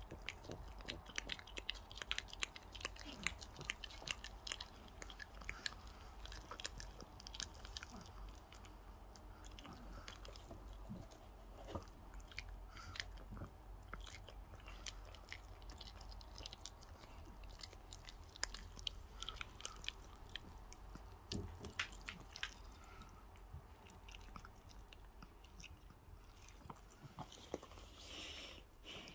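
A small dog chewing and biting into raw chicken on the bone, with many irregular crunches and sharp clicks.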